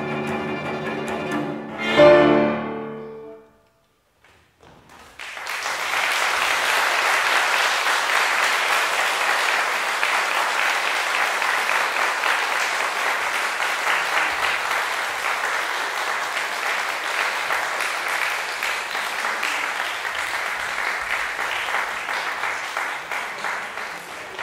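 Piano trio of violin, cello and grand piano playing its closing bars and ending on a loud final chord about two seconds in that rings away. After a brief silence, the audience breaks into steady applause.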